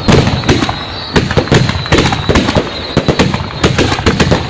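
Fireworks going off in quick, irregular succession: many sharp bangs a second, one after another.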